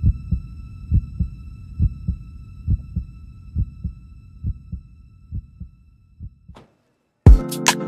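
Heartbeat sound effect: slow pairs of low thumps, about one pair a second, fading out over about six seconds. Loud music with a heavy beat cuts in near the end.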